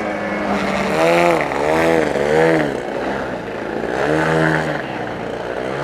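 Radio-controlled model airplane engine, its pitch swinging up and down in smooth arcs as the throttle is worked: three quick swells about a second in and another a little before the end.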